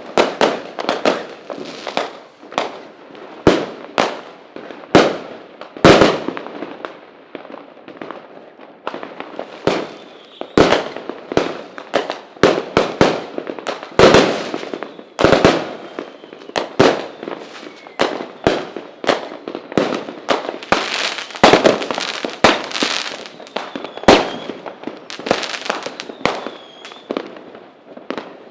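Fireworks going off: a rapid, irregular barrage of sharp bangs, several a second at times, with crackling between the louder reports.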